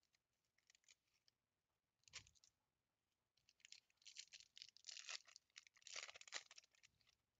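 Faint crinkling and tearing of a foil trading-card pack wrapper being opened by hand. A few short rustles at first, then a busier stretch of crinkling through the second half.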